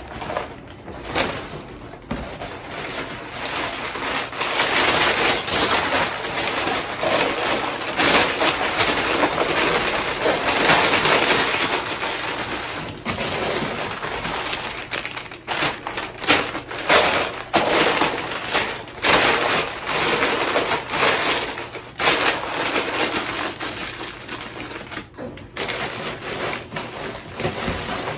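Hand-wrapping ornaments: wrapping material crinkling and rustling in a dense run of small crackles and crunches, loudest in the middle and easing off near the end.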